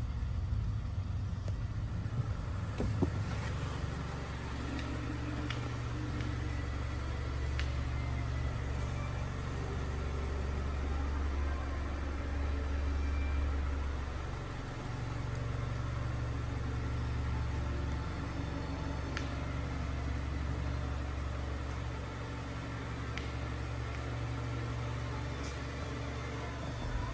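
Mazda 3 hatchback's engine idling steadily with a low, even hum, and a few faint clicks now and then.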